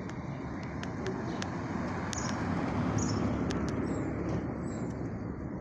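City street ambience: a steady hum of distant traffic that swells slightly in the middle.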